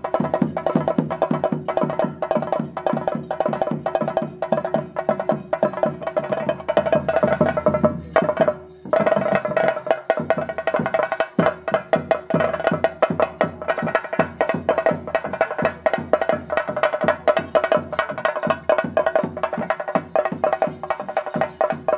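Fast, dense temple drumming, most likely chenda, with a steady held tone over it, the kind of percussion that accompanies a theyyam performance. The drumming breaks off for a moment about eight and a half seconds in, then carries on.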